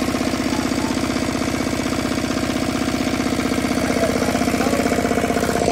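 Single-cylinder diesel engine of a farm irrigation pumping set, running steadily with an even, rapid beat just after being started by hand crank.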